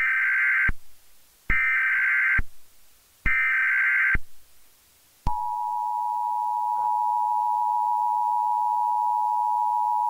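Emergency Alert System tones: three short, harsh data bursts of the SAME header, then, about five seconds in, the steady two-tone EAS attention signal starts and holds.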